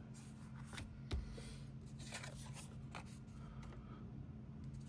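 Faint rustling and light taps of cardstock being handled, with a soft thump about a second in, over a low steady hum.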